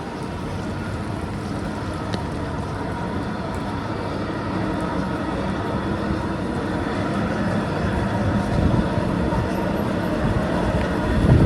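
Steady low rumble of passing vehicles, growing louder and peaking near the end.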